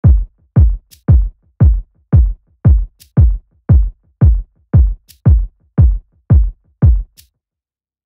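Electronic music with a deep, steady drum-machine beat about twice a second and an occasional high hit between beats. The beat stops shortly before the end.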